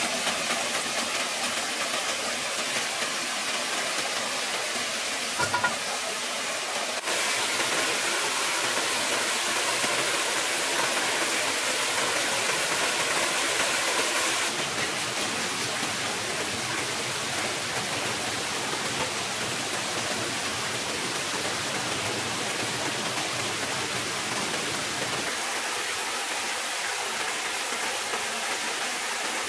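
Steady rush of a small stream and waterfall running over rocks, louder for a stretch from about seven seconds in to about halfway. A couple of brief knocks sound about five seconds in.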